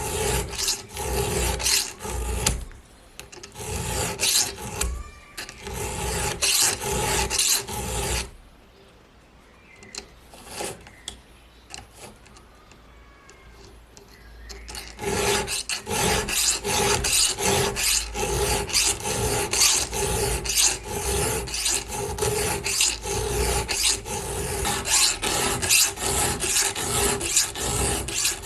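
A file stroking across chainsaw chain teeth to sharpen them, in a steady run of scraping strokes. The strokes stop for several seconds about a third of the way in, then start again.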